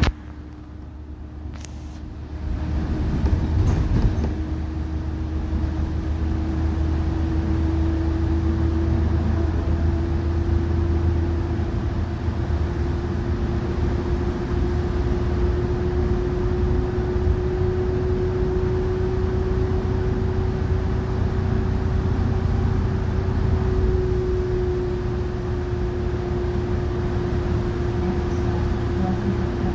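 Inside a New Flyer XN40 natural-gas city bus at cruising speed: the Cummins L9N engine and ZF transmission give a low rumble and a steady drivetrain whine, over tyre hiss from the wet road. The sound dips briefly at the start, then picks back up.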